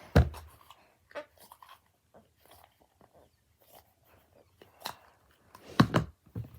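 Knocks and small handling noises of things being moved about on a hard surface: a sharp thump just after the start, scattered light clicks, and a louder pair of knocks near the end.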